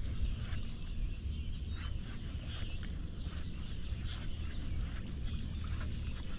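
Birds calling in short scattered chirps over a steady low rumble.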